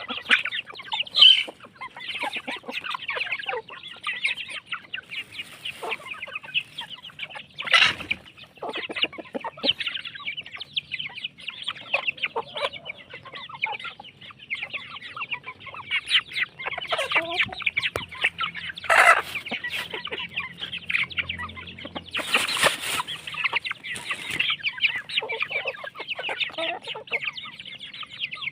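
A flock of free-range village chickens clucking and calling continuously, many birds at once, with a few louder calls standing out.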